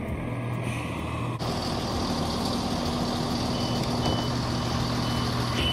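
Class 170 Turbostar diesel multiple unit standing with its underfloor diesel engine idling in a steady hum. From about three and a half seconds in, a short high door-release beep repeats about twice a second while the lit door-open button is pressed.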